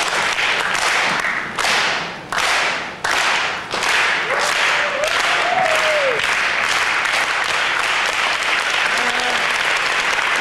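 Live audience applauding and clapping: several quick surges over the first few seconds, then steady applause. A short voice call rises over it about halfway through.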